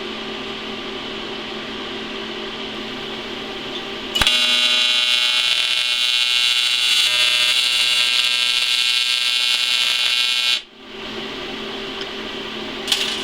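AC TIG welding arc on aluminum: a steady machine hum, then about four seconds in the arc strikes and buzzes loudly and evenly for about six seconds before cutting off suddenly. The arc is started right in the gap at the corner of a butt joint, which melts the corner away before filler can be added.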